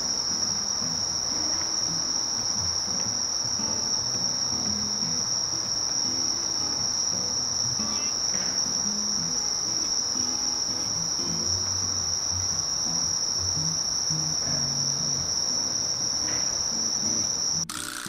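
A cricket or katydid singing one steady, unbroken high-pitched trill, which cuts off suddenly near the end as a guitar tune starts.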